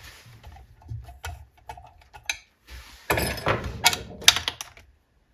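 Hands working the plastic and metal parts of an RC buggy's driveline and suspension: scattered clicks and rattles, busier for a second or so past the middle.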